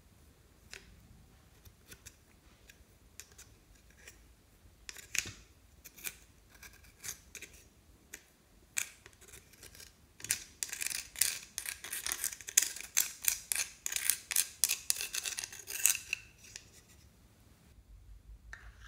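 Pressed powder eyeshadow being scraped and broken out of its compact pan with a small tool, the crumbled powder and chunks falling into a glass dish. Scattered scratches at first, then about six seconds of rapid, dense scraping that stops near the end.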